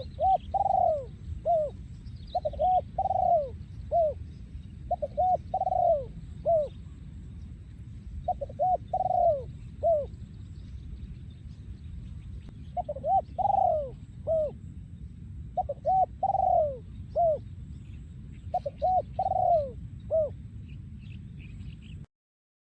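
A male spotted dove cooing its song, a phrase of about four short falling coo notes repeated seven times, every two to three seconds. A steady low rumble runs underneath, and a few faint high chirps from other small birds come in now and then.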